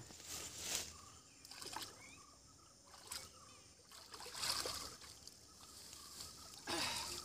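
Faint water splashing and sloshing in short spurts as a person wades through a river toward the bank, loudest about four and a half seconds in and again near the end.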